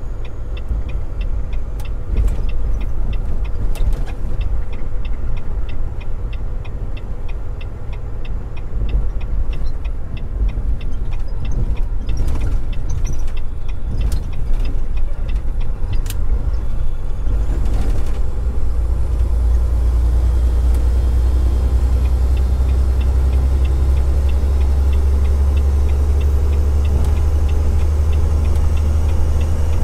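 Semi-truck engine and road noise heard from inside the cab: a steady low rumble that grows louder and more even from about two-thirds in as the truck pulls up a ramp. A light, fast, regular ticking runs through much of it.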